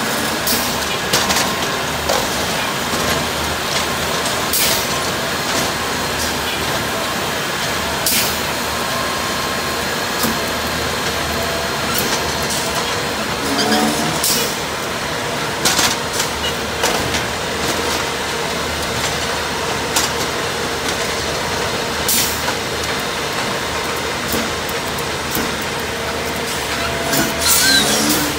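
Rail-mounted track maintenance machine running steadily on the track during tie replacement, broken by short, sharp bursts every few seconds.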